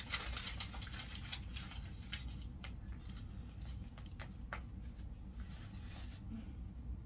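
Soft grass broom (walis tambo) sweeping a tiled floor: uneven rustling swishes, strongest in the first second or so and again near the end, with a few sharp light clicks in between.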